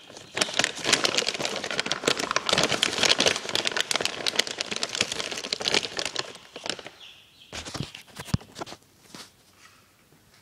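Close crinkling and rustling of a bag or packaging as a scoop of chick feed is filled, dense for about six and a half seconds, then a few scattered clicks.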